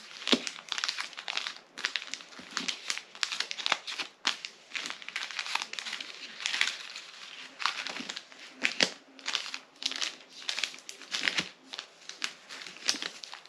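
Packaging crinkling and rustling in irregular crackles as tea packets are handled and sorted through.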